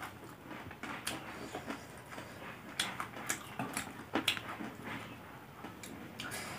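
Close-up eating sounds: chewing and soft mouth smacks, with metal spoons scooping and scraping salad on a banana leaf, heard as a scatter of small sharp clicks.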